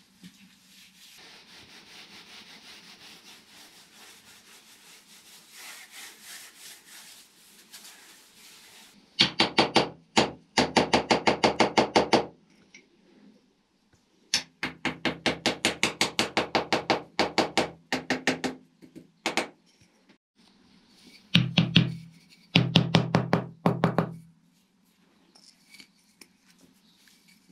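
Faint scraping of wet cement being smoothed by hand. From about nine seconds in, several bursts of rapid wooden knocking, each a few seconds long, at about ten knocks a second; these are the loudest sounds.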